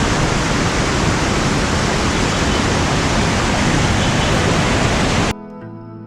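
Waterfall rushing: a loud, steady hiss of falling water. It cuts off abruptly about five seconds in and gives way to quiet background music.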